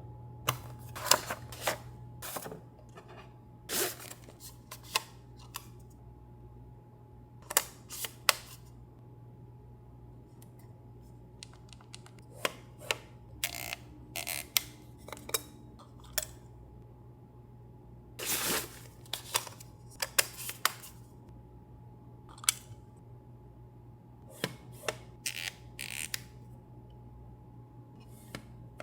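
Hands unpacking and handling camera lenses and their boxes: scattered clicks, taps and short rustles of packaging, with longer rustles near the middle and again later, over a steady low electrical hum.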